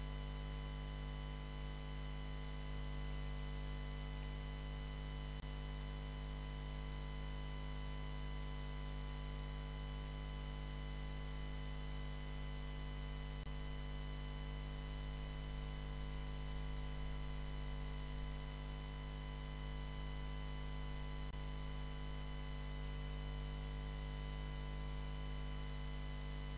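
Steady electrical hum with a buzz of many overtones, unchanging throughout: mains hum picked up by the broadcast's audio chain.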